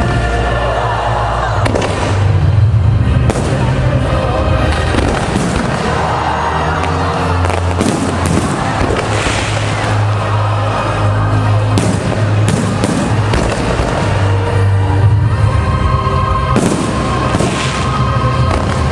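Fireworks going off in rapid series, many sharp bursts and crackles, over loud music with a strong bass line.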